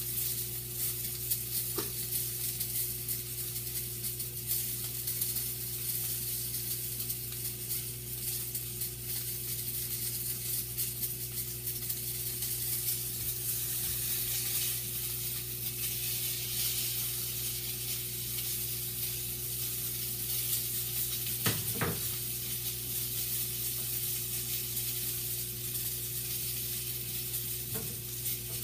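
Sausage sizzling steadily in a frying pan over a low steady hum, with a plastic spatula stirring and scraping the pan and a few short knocks against it, the clearest about two-thirds of the way in.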